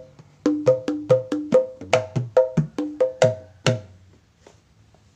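Hand drumming on a set of Indonesian kempul drums (two tall blue conga-style drums and a small lap drum): a quick run of open, ringing strokes at about five a second, with some deeper bass strokes. It starts about half a second in and stops after about three seconds. It is a sound check of heads whose skins have not yet fully settled.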